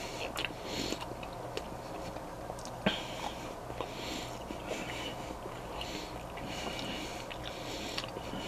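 Someone chewing a mouthful of hot dog with onion relish, with hissy breaths through the nose between chews and a sharp click about three seconds in.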